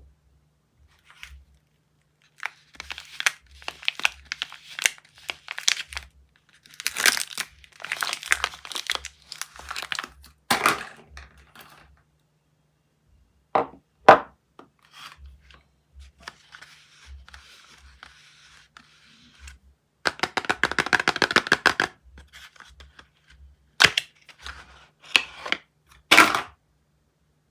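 Soap packaging being unwrapped by hand: the paper or plastic wrapper crinkles and tears in bursts. There are a few sharp snaps, and a fast rattling rip about two thirds of the way through.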